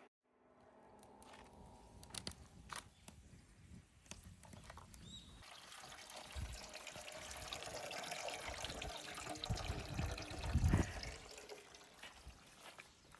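Liquid being poured into a container, building steadily over several seconds and peaking shortly before it tails off.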